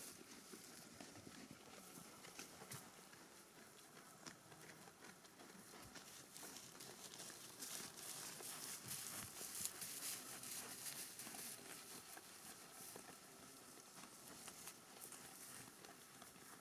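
Sheep grazing: a faint, dense run of quick crunching clicks as grass is torn and chewed, a little louder about halfway through.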